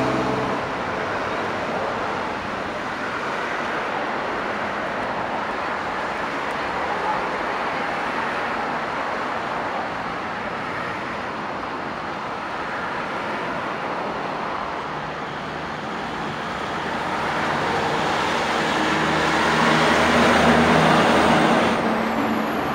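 Busy street traffic: a steady wash of tyre and engine noise from passing cars. It swells louder near the end as heavier engine noise passes by.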